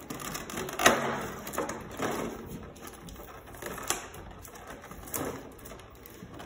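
Rigid clear plastic clamshell packaging crackling and clicking as a bust is worked free of it: irregular crinkles and snaps, the sharpest about a second in.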